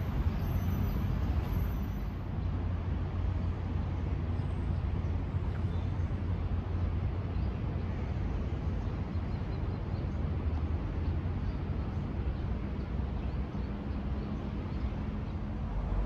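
Steady low rumble of city traffic, an even hum with no single event standing out.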